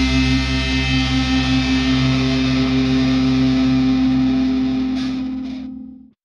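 A heavy metal band's closing chord: distorted electric guitar held and ringing out, fading over the last second and cutting off just before the end.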